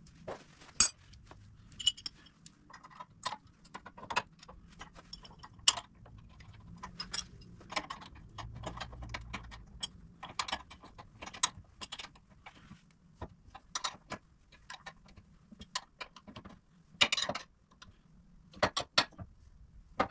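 Metal hand tools clinking and clicking as a wrench works the bumper and winch mounting bolts, in scattered sharp clicks with a few short runs of quick clicking.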